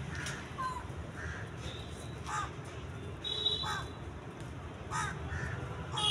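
Short animal calls repeated irregularly, about one a second, with a brief high whistling note a little past the middle.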